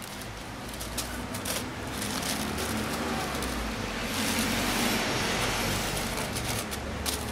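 Street traffic noise, swelling louder for a couple of seconds about four seconds in as a vehicle passes close by.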